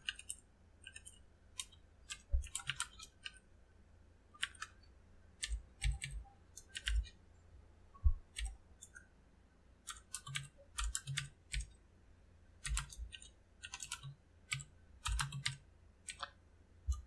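Computer keyboard typing: irregular clusters of quick keystroke clicks with short pauses between them, some keys landing with a dull low thud.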